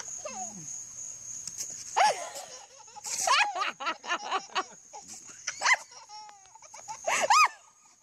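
A toddler laughing and squealing in short peals that rise and fall in pitch, loudest about two seconds in, again around three to four seconds, and near the end.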